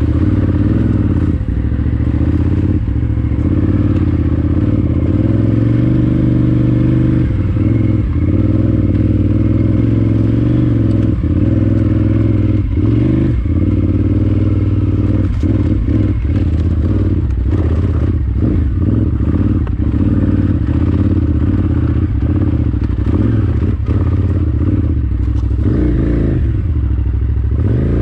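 KTM 990 Adventure R's V-twin engine with Akrapovič exhaust running at low, varying revs on rough trail, with frequent knocks and clatter throughout and the revs rising and falling near the end.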